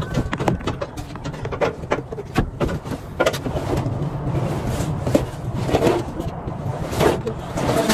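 Molded truck floor carpet being dragged and pulled back off the cab floor: an irregular run of scrapes, rustles and knocks over a steady low rumble.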